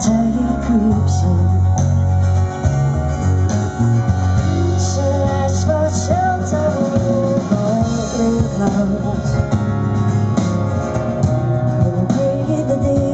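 Live band playing through a stage PA: a woman singing over a strummed acoustic guitar, drums and electric guitars.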